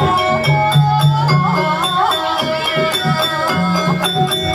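Banyumasan gamelan music for a kuda kepang dance: ringing metallophone and gong notes held over regular, even percussion strikes. A wavering melodic line rises and falls in the middle.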